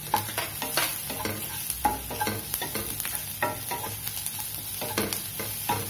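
Wooden spatula scraping and tapping irregularly against a non-stick kadai as chopped onion and crushed ginger-garlic are stirred, over a steady sizzle of frying in oil and ghee.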